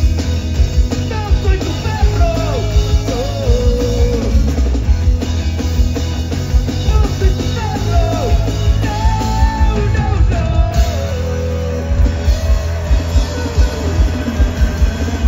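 Rock band playing live: a driving drum kit beat and bass guitar under a melodic line that bends and slides in pitch.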